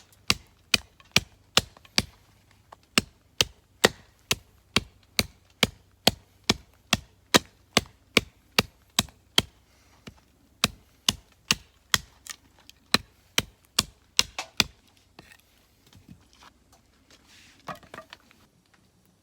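Steady chopping, sharp knocks about two a second with a brief pause about ten seconds in, stopping about fifteen seconds in; a few faint handling noises follow.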